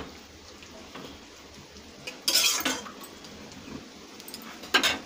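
Metal spatula scraping and knocking against a karahi while stirring a thick vegetable curry, with a cluster of scrapes a little over two seconds in and another near the end.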